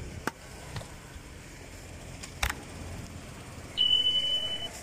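A few sharp knocks of a knife on a wooden chopping board during fish cutting. Near the end comes a steady high beep lasting about a second, a sound effect added for the on-screen subscribe-button animation.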